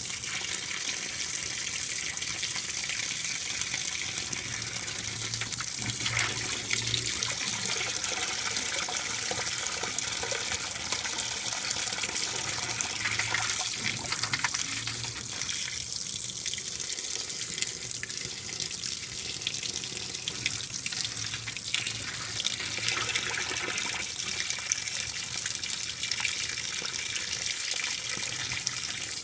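Water pouring steadily into the tub of a 2012 LG top-load washer as it fills on the delicates cycle.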